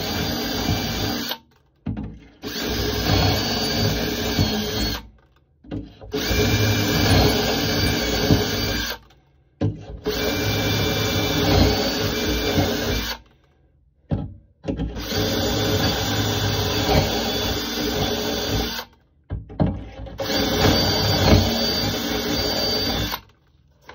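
Cordless drill boring shelf-pin holes into wood through a Kreg shelf pin jig: six steady runs of a few seconds each, one per hole, each stopping suddenly, with short pauses between them.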